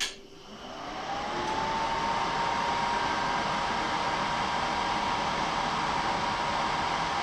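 Suburban NT-12F RV furnace switching on with a click, its blower motor spinning up over about two seconds with a rising whine and then running steadily with a rush of air.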